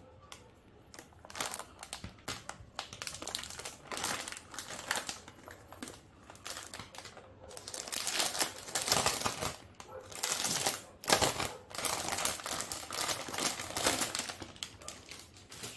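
Plastic packaging crinkling as it is handled during a keyboard unboxing, in crackly stretches of about a second, mixed with scattered sharp clicks.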